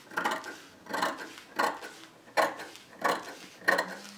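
Large metal dressmaker's shears cutting imitation-leather fabric: a steady run of about six snips, one every two-thirds of a second or so, as the blades close through the cloth.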